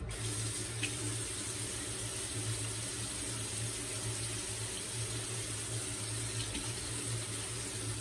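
Water running from a sink tap in a steady rush that starts and stops abruptly.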